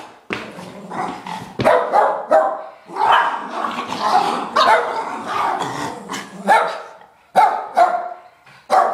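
Small dogs barking during rough play: a quick run of sharp, yappy barks, about a dozen, coming roughly every half second with short pauses, thickest a few seconds in.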